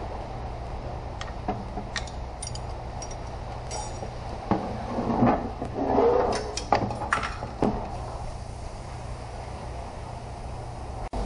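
Scattered clicks and knocks of transmission parts and tools being handled, busiest in the middle, over a steady low hum.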